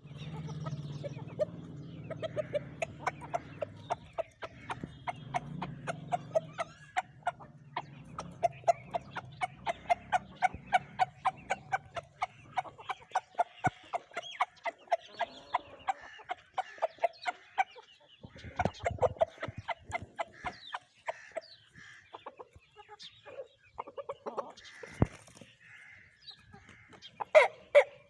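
Aseel chickens clucking in a fast, steady run of short clucks, about four a second, thinning out later, with one louder call near the end. A low steady hum runs under the first half.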